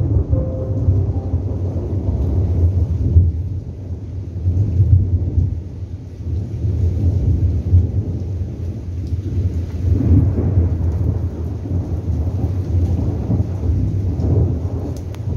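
Thunderstorm: rain with a deep, continuous rumble of thunder that swells and eases several times.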